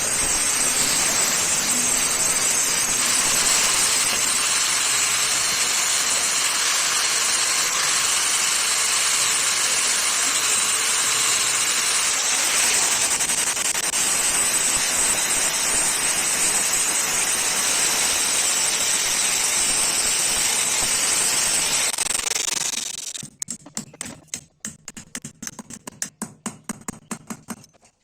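A power abrasive tool hisses steadily against the metal of a knife, then stops near the end. Quick, rhythmic hand scraping or filing strokes follow, several a second.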